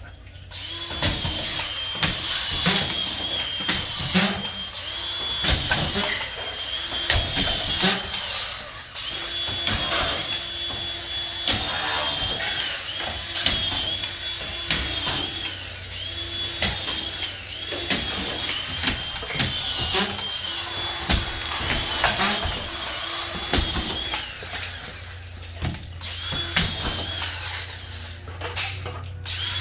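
Drywall screw gun driving screws, its motor whining up and stopping again and again, each run about a second long, amid knocks and clatter of sheets being fixed.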